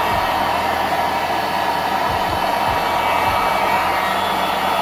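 Hot-air heat gun blowing steadily, shrinking heat-shrink tubing over a capacitor.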